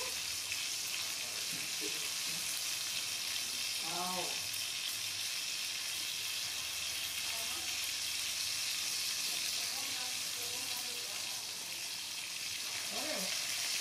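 Climbing perch (Anabas testudineus) frying in oil in a pan, a steady sizzle throughout. A couple of short wavering vocal sounds rise above it, about four seconds in and again near the end.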